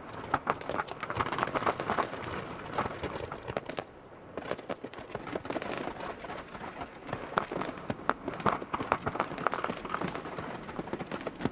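Fireworks display crackling: a dense, rapid patter of many small bursts, with sharper pops among them, easing briefly about four seconds in.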